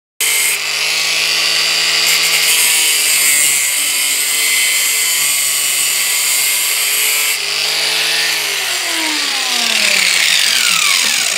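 Angle grinder grinding a chainsaw's sheet-steel muffler clamped in a vise, with a steady motor whine. Near the end it is lifted off the work, and the motor winds down with a falling pitch.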